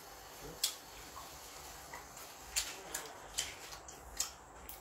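Eating sounds from sucking on and peeling a prawn by hand: about six short, sharp wet smacks and clicks, scattered unevenly.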